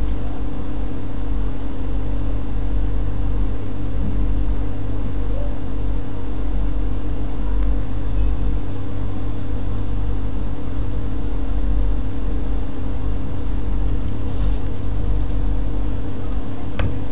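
Steady low hum with a constant hiss, unchanging throughout, with a single faint click near the end.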